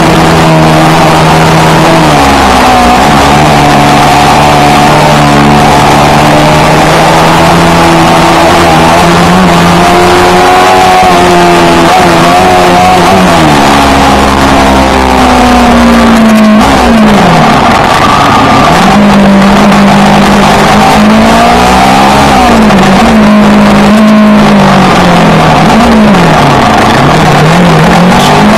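Yamaha R3 parallel-twin motorcycle engine with an aftermarket Akrapovic exhaust, very loud while riding. Its note holds steady for stretches, then falls and climbs again several times as the throttle is rolled off and back on through the gears, more often in the second half.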